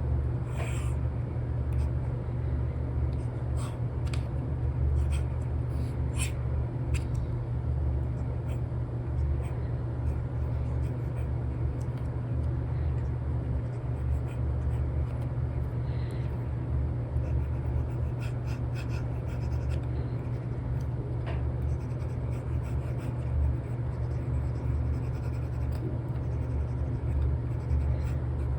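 Stylus tip tapping and scratching across a paper-like film on a tablet screen in short strokes during sketching, over a steady low rumble that is the loudest sound throughout.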